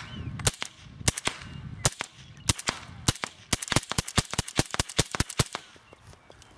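Suppressed 300 AAC Blackout short-barreled AR-15 rifle with a Yankee Hill Phantom 30-cal suppressor, fired semi-automatically from a magazine loaded with alternating subsonic and supersonic rounds. The shots come in a quick string that speeds up to several a second in the second half and stops about five and a half seconds in.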